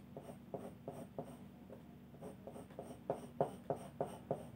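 4B graphite pencil drawing short, quick strokes on paper to put in hair strands. The strokes come about three a second and grow more distinct in the second half.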